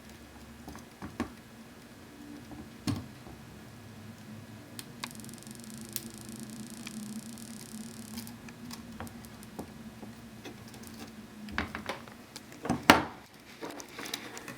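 Desoldering with a soldering iron and copper desoldering wick on a circuit board: scattered small clicks and taps of the tools, with a high hiss lasting about three seconds in the middle as the hot iron presses the wick onto the solder. A faint steady hum runs underneath, and a sharper click comes near the end.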